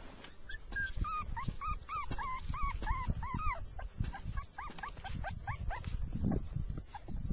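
Shiba Inu puppy whimpering in a run of short high whines, about three a second, then a shorter second run about four and a half seconds in.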